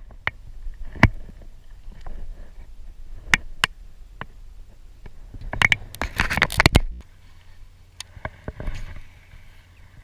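Scattered knocks, clicks and scrapes of fishing gear being handled in a small boat, with a rapid cluster of rattling knocks about six seconds in.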